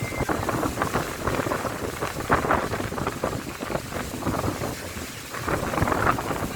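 Strong storm wind buffeting the microphone in uneven gusts, with a rushing noise that swells and eases.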